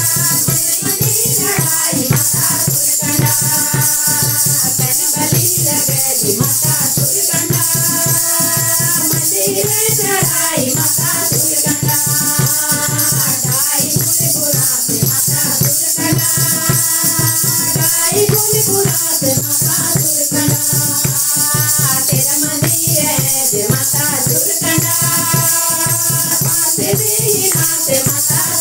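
Women's group singing a Garhwali devotional bhajan, a lead voice on microphone over hand-clapping and a dholak beat with a steady bright rattle of percussion. The sung phrases run about four seconds each with short breaks between them.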